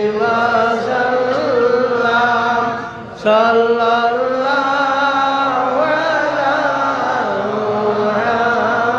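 A man chanting Arabic salawat on the Prophet Muhammad in long, drawn-out melodic phrases, with a short pause for breath about three seconds in.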